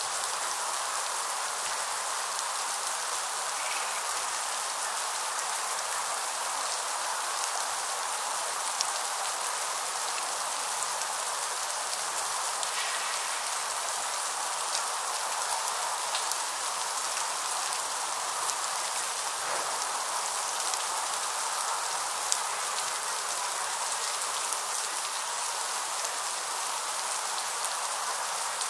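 Steady freezing rain falling: an even hiss of many fine taps, with scattered sharper ticks.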